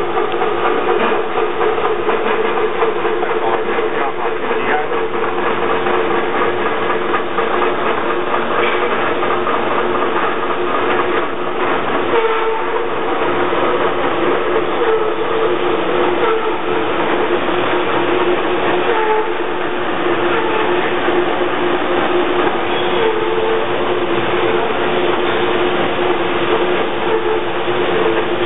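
MEGA TR-30T hydraulic thread rolling machine running: a loud, continuous mechanical hum and rumble with a steady drone, holding even throughout.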